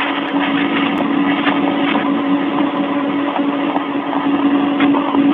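Radio audio from a cosmonaut's spacesuit microphone during a spacewalk: steady hiss with a low hum, and a few clicks of tools being handled, carried through the suit to the microphone.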